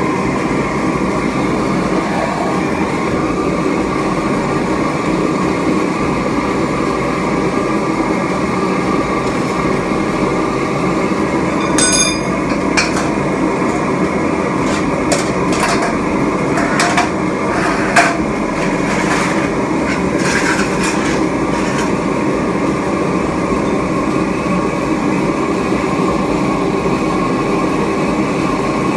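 Homemade metal-melting furnace built from a cut-down propane tank, running with a steady, loud rushing drone during a melt of scrap aluminium and brass. A ringing metallic clink comes about twelve seconds in, followed by a string of sharper knocks and clinks over the next ten seconds.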